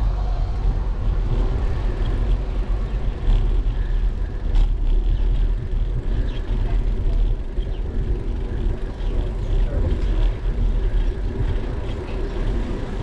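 Steady low wind rumble on the microphone of a bicycle-mounted GoPro, with tyre and road noise from riding along a paved street.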